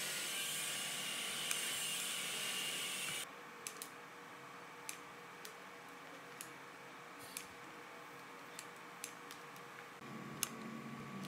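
Steady hiss that cuts off suddenly about three seconds in, followed by scattered small clicks from hands handling wires and tools at a workbench. A low hum comes in near the end.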